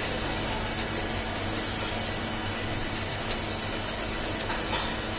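Drilling machine running a roller burnishing tool in a 125 mm bore: a steady running noise with a low hum underneath and a few faint ticks.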